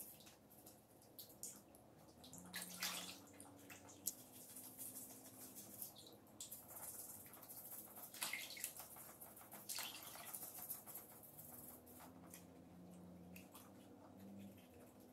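Faint, irregular water splashing and sloshing in a plastic basin as live crabs are scrubbed clean in it by hand, with scrubbing strokes against the shells.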